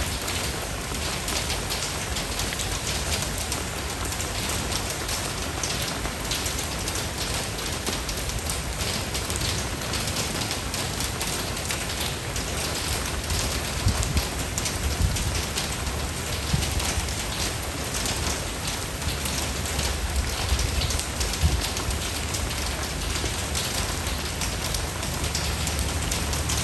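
Steady rain falling, a dense patter of drops over a low rumble, with a few louder drops standing out now and then.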